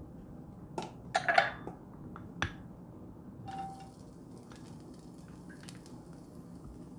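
A few sharp clinks of a glass bowl against a frying pan as sliced garlic is tipped in. Then, about three and a half seconds in, a faint sizzle of garlic in hot oil starts and keeps going, with a few small pops.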